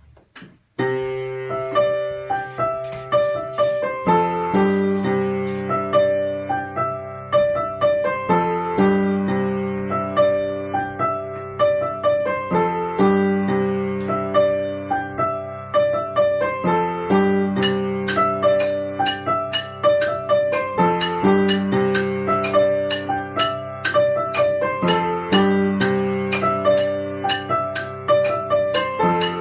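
Piano music that starts about a second in, repeating the same chord pattern roughly every four seconds. Crisp high ticks keep a steady beat from about halfway through.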